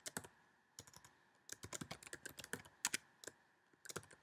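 Faint typing on a computer keyboard: quick runs of key clicks broken by short pauses between words.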